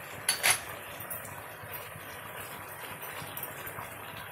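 Marinated chicken simmering and sizzling steadily in oil and ghee in a pot on a high gas flame. About half a second in, two or three sharp knocks of a utensil on the pot.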